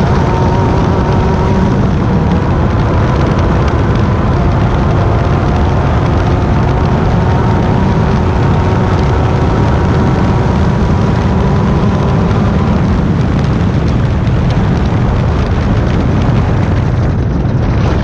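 Class 10 desert race car's engine held at steady high revs over a heavy low rumble, easing off briefly near the end.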